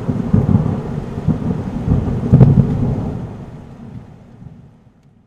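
Thunder rumbling over steady rain. The rumble swells about two and a half seconds in, then fades away.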